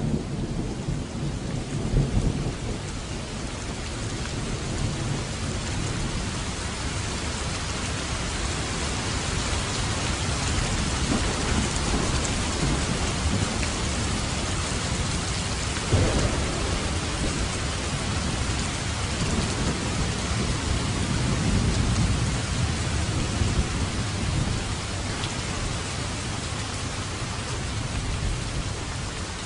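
Heavy rain falling steadily, with low rolls of thunder rising and fading several times and a sharper thunderclap about halfway through.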